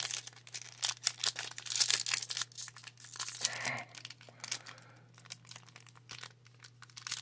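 Plastic-foil wrapper of a Pokémon booster pack being torn open and crinkled by hand: a string of short rips and crackles, thinning out in the second half, with a louder rip near the end.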